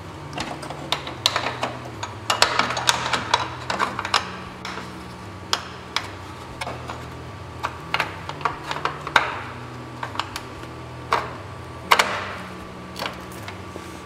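Irregular metallic clicks, taps and clatter of hand-fitting a bolt-on metal standoff with its 6mm bolt and washer, busiest about three seconds in, with a sharp knock near the end.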